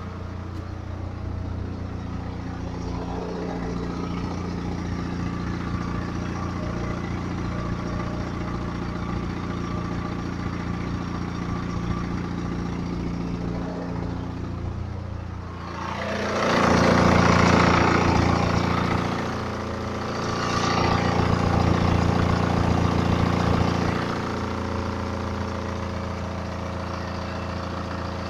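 BMW 318d's N47 four-cylinder diesel running cold at idle, a steady drone that swells louder twice in the second half, once for about three seconds and once for about four. The owner asks whether timing chain noise can be heard in it.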